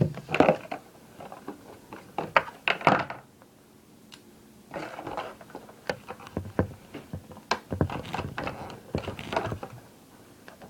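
Hands handling a Leatherman Kick multitool and its paper, cardboard and plastic packaging: irregular rustling with scattered taps and clicks, in two spells with a short lull between.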